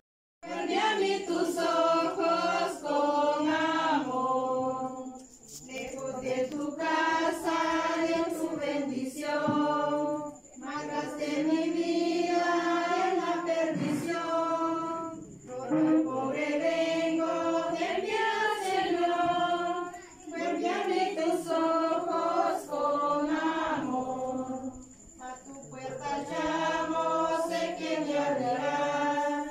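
A group of people singing a song together, in long phrases with short pauses between them.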